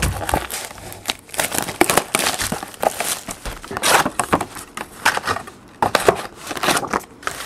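A sealed trading-card hobby box being unwrapped and opened by hand: a run of irregular crinkling, tearing and crackling of the wrapper and cardboard.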